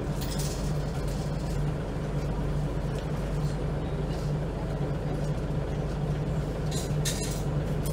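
Scania L94UB bus's five-cylinder diesel engine idling steadily, heard from inside the passenger saloon. There are a few sharp clicks or rattles about seven seconds in.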